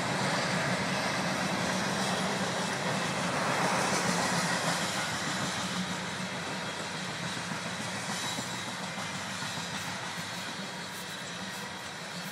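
Coal hopper cars of a CN freight train rolling past on the rails, a steady rolling noise that slowly fades.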